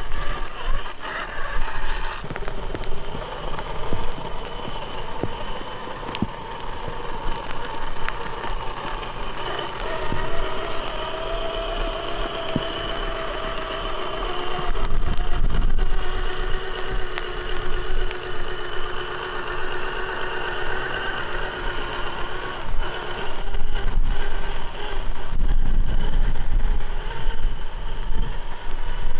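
Radio-controlled rock crawler's electric drivetrain, a sensored brushless motor and its gears, whining steadily as the truck crawls over wet rock and mud. The whine holds one pitch for several seconds at a time, then steps to a new pitch as the throttle changes.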